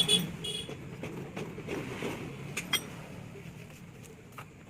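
Metal tools and engine parts clinking and clicking as they are handled, with a short ringing clink right at the start and a few sharp clicks a little more than halfway through, over a low background rumble.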